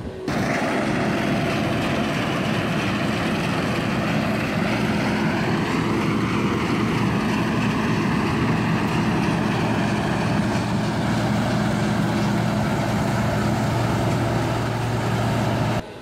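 Case IH combine harvester running close by: a steady diesel engine drone, with a whine that rises and then falls about halfway through.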